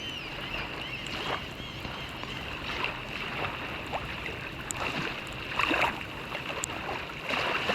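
Water splashing from a swimmer's strokes, in irregular splashes about every second or so, over a steady hiss of rain falling on the water.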